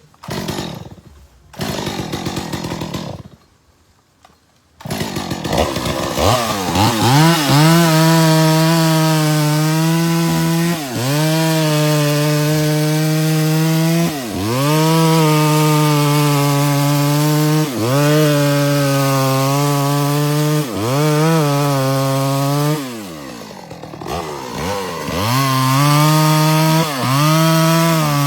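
Two-stroke chainsaw running at full throttle while cutting a tree. Every few seconds its engine pitch dips and then recovers, and it comes in abruptly about five seconds in after a few choppy starts and stops.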